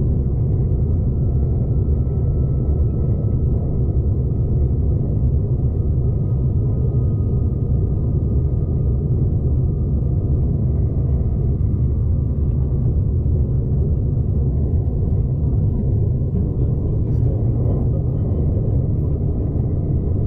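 Steady low rumble of a passenger train running along the track, heard from inside the carriage.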